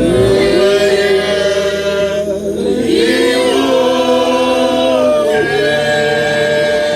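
Voices singing a gospel song with long held notes and little accompaniment.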